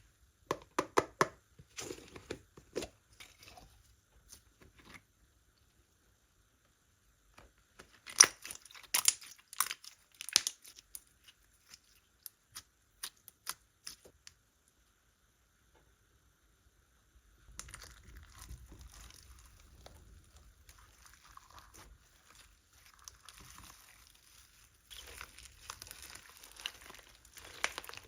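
Slime being handled by hand: sticky clicks and pops in two bursts, then a steadier crackling from about two-thirds of the way in.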